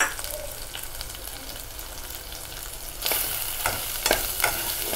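Chopped onion, ginger-garlic paste and ground spices sizzling in hot oil in a pot. About three seconds in, a metal spoon starts stirring: the sizzle grows louder, and the spoon knocks and scrapes against the pot a few times.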